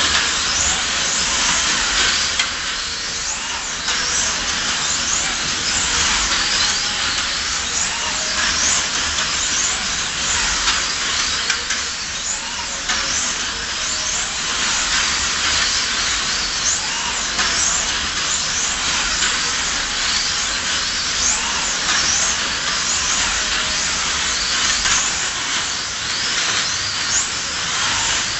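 Several 1/24-scale slot cars racing, their small electric motors whining and rising and falling in pitch over and over as they accelerate and brake through the corners, over a steady hiss.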